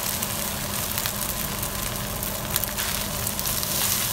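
Egg fried rice sizzling in a nonstick frying pan as a plastic spatula stirs and presses it to break up clumps of rice, with short scrapes and taps of the spatula against the pan over a steady hiss.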